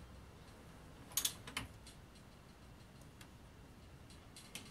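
A few sharp, irregular metal clicks from a socket wrench being worked on a bolt of a brake mounting plate, two of them louder about a second in and more near the end.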